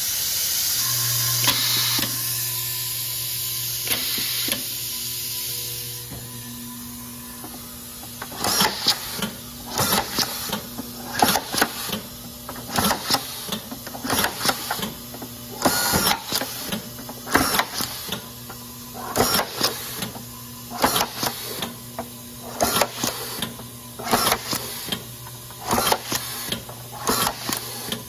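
DTI 5000 automatic screwfeeding and screwdriving system at work: the vibratory bowl feeder hums steadily, over a rushing hiss for the first few seconds. From about eight seconds in comes a quick run of short bursts, roughly one every second, as screws are fed through the tube and driven one after another into plastic.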